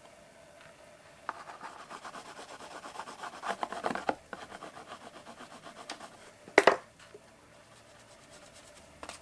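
Pastel stick rubbed against paper in quick, repeated scratchy strokes for about three seconds, then a single sharp tap about six and a half seconds in.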